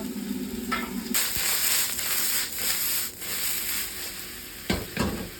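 Vegetables hitting smoking-hot oil in a wok: a loud sizzle bursts in about a second in, just as a low hum cuts off, then dies down. Two sharp knocks follow near the end.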